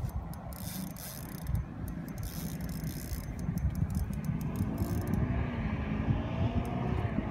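Spinning reel on a short ice-fishing rod being cranked steadily, its gears whirring and ticking under the load of a hooked pike being reeled up.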